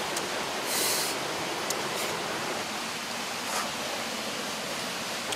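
Forest stream running over rocks, a steady rush of water, with a brief higher hiss about a second in and a few faint clicks.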